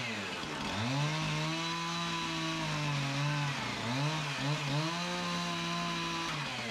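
Chainsaw cutting through old wooden stall boards. It runs at high speed and its pitch dips and recovers several times, most clearly about half a second in and again around three to four and a half seconds in, as the chain bites into the wood.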